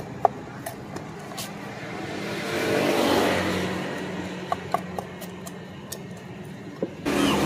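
Knife scraping scales off a small fish on a bamboo cutting board, with scattered sharp taps and clicks of the blade. A steady low hum lies underneath, a louder rushing noise swells and fades around three seconds in, and the background jumps louder near the end.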